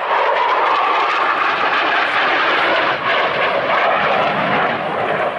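F-16 fighter jet's engine noise, loud and steady as the jet passes close and then climbs away, easing off slightly near the end.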